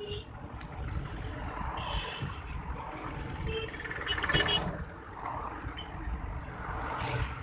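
Road traffic heard from a moving bicycle, with wind rumbling on the microphone and a few short high tones. There is a louder rushing swell about four seconds in.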